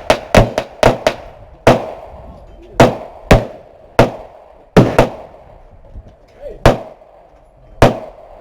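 Gunfire on a firing range: about fourteen sharp shots with short echoing tails. The first five come in quick succession, then single shots follow at uneven gaps of half a second to a second.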